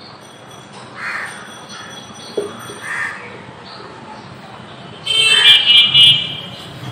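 Crows cawing several times in short harsh calls, the loudest cluster about five seconds in.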